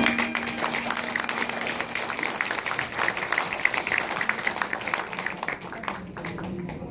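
Audience applauding as the music ends, the clapping thinning out near the end.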